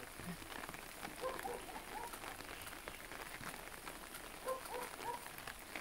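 Rain pattering steadily on umbrellas, with scattered drop ticks throughout and a faint voice heard briefly twice.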